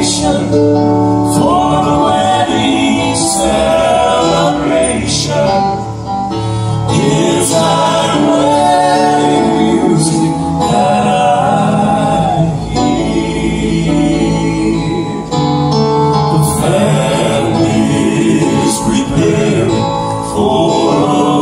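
Southern gospel male quartet singing in close four-part harmony into microphones, with piano accompaniment.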